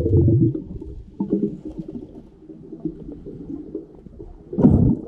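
Muffled underwater sound through a camera's waterproof housing: low rumbling with dense crackling, louder in the first half second, and one short, loud rush of noise near the end.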